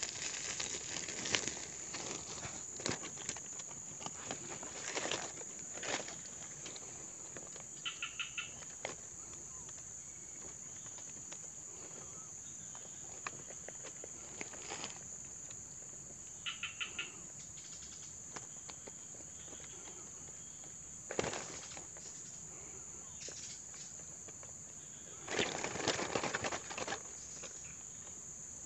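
Insects shrilling steadily in a high band, with a short rapid call of several notes heard twice. Over it, crinkling rustles and clicks from a plastic-and-net fish trap being handled, densest near the end.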